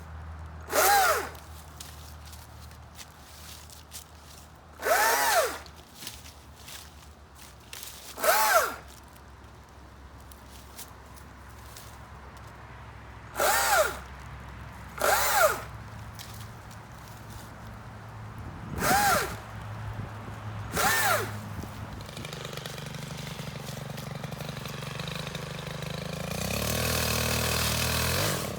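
A power saw's motor revving in seven short bursts of about half a second each, each rising and then falling in pitch, over a low steady hum. Near the end a louder, steady running sound builds up.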